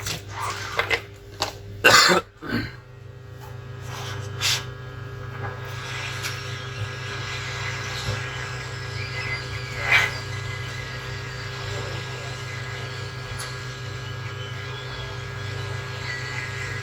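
A few clicks and knocks, then a hot-air rework station's blower starts and its airflow hiss builds over a few seconds and runs steadily, for lifting a charging IC off a laptop motherboard. A steady low electrical hum runs underneath.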